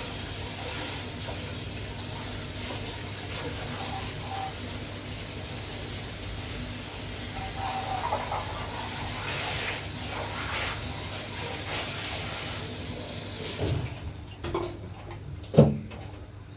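Vacuum cleaner running on a mattress with a steady hiss of rushing air and a low hum, switched off suddenly near the end, followed by a single sharp knock.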